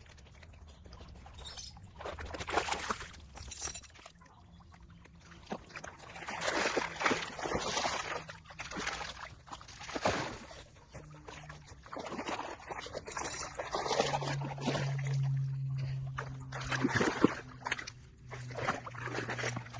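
Water sloshing and splashing in irregular bursts as a dog swims. A low steady hum joins about fourteen seconds in.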